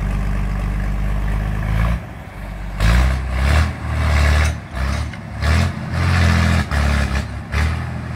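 Old John Deere tractor engine running steadily, dipping briefly about two seconds in, then revving in repeated loud surges under heavy load as the tractor strains against a cable hitched to a stump.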